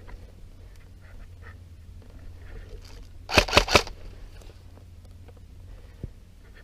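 Three airsoft gun shots in quick succession, sharp cracks about a fifth of a second apart, a little past three seconds in.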